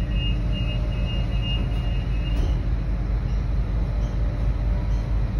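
Steady low rumble and running noise of a moving commuter train, heard from inside the carriage. A high-pitched tone wavers on and off through the first two seconds or so, then stops.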